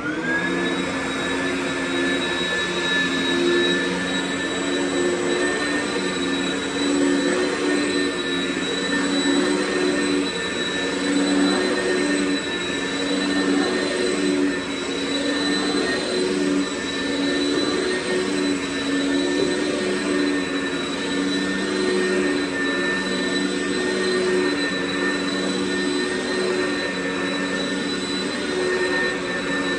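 Oreck commercial upright vacuum cleaner switched on, its motor spinning up to speed in a moment, then running with a steady high whine as it is pushed back and forth over carpet.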